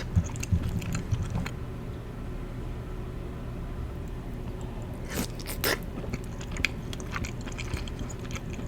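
Close-up eating sounds: a person chewing and biting into creamy chicken pasta, with a few sharp wet clicks from the mouth a little past halfway.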